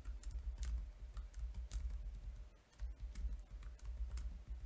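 Computer keyboard typing: scattered single keystrokes, a few a second in short runs, over a low rumble.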